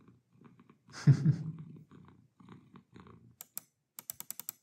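A cat purring softly, with one louder, short burst about a second in. From about three and a half seconds, rapid sharp clicks of a Logitech MX Master 3 mouse button being pressed over and over.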